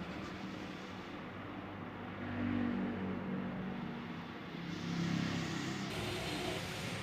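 Honda CR-V engine running, revved up twice, rising in pitch and level each time before settling back.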